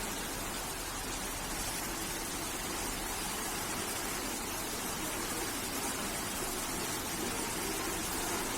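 Steady, even rush of water noise with no distinct drops, splashes or tones.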